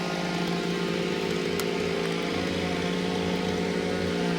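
Chainsaw running steadily, its engine holding one even pitch throughout.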